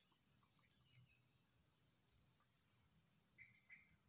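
Near silence outdoors, with a faint steady high-pitched insect chorus and two brief faint chirps near the end.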